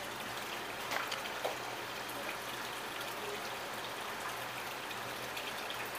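Steady hiss with a constant low hum, typical of an electric desk fan running. A couple of faint clicks about a second in come from fingers picking apart a cooked crab.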